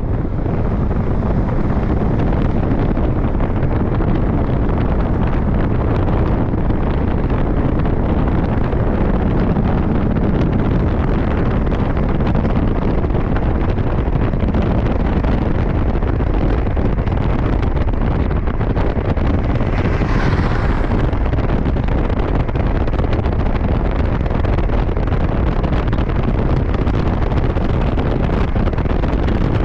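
Steady, loud rushing noise with a deep rumble underneath and no speech, and a brief brighter hiss about twenty seconds in.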